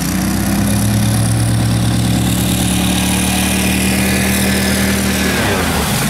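Swamp boat's outboard motor running hard at a steady pitch as the boat speeds across the water to break through onto grass; about five seconds in the engine note wavers as the boat runs up onto the grassy bank.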